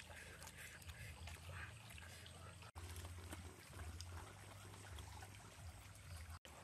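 Faint trickle of a small forest stream, with a low steady hum beneath and scattered soft clicks.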